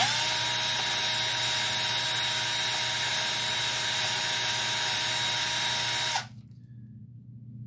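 Electric drill spinning a chucked leather drive punch against 220-grit sandpaper to sharpen its edge: the motor spins up quickly, runs steadily with a high hiss for about six seconds, then stops.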